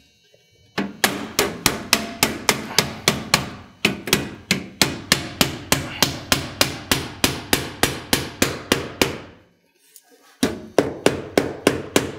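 Claw hammer driving nails through aluminum fascia into the wooden subfascia, with quick, even blows about four a second. The hammering stops for about a second, then starts again near the end.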